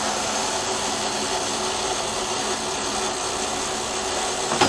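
Washing machine running just after being switched on: a steady whirring motor noise, with a short knock near the end.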